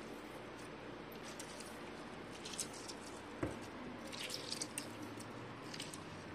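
Lemon half squeezed by hand, with faint wet squishes and juice dripping, and a single sharp click about halfway through.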